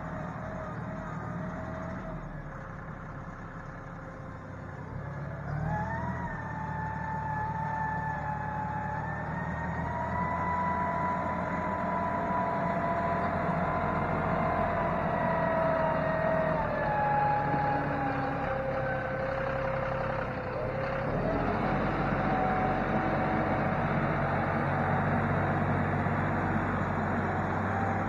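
John Deere utility tractor's diesel engine running under load as the front loader pushes and spreads the clay-and-rock mix. It revs up about five seconds in, eases off around seventeen and twenty seconds, and revs up again a second later.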